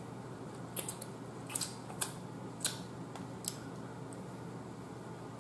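Close-up eating sounds of snow crab being picked and chewed: about half a dozen sharp, irregular clicks and crackles. A faint steady hum lies under them.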